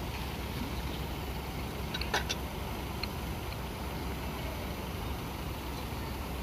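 A bus engine idling with a steady low rumble. There is a brief click about two seconds in.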